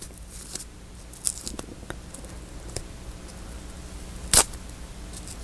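Handling of washi cloth tape and paper: faint rustles and small clicks, with one sharper snip or click about four seconds in.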